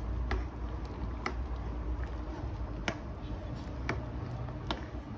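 Wooden spoon stirring pasta in a saucepan of boiling water, knocking against the pan about five times at irregular intervals over a steady low bubbling.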